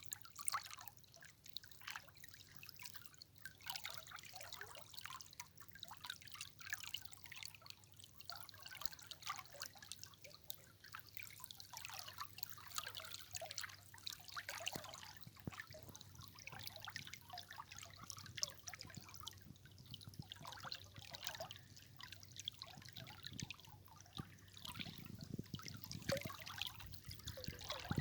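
River water trickling and bubbling, with many small splashes and drips.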